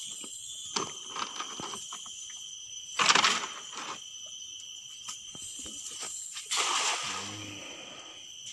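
A hand-thrown cast net hitting the water with a sharp splash about three seconds in, followed by a softer rush of noise a few seconds later. Insects keep up a steady high-pitched drone throughout.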